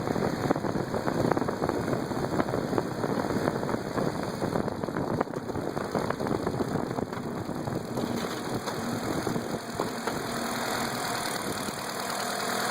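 Engine idling with a rapid, steady knocking.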